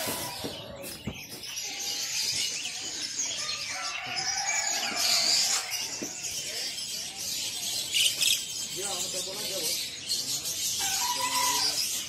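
Many caged small songbirds chirping and twittering at once in a dense, continuous chorus, with faint voices talking in the background.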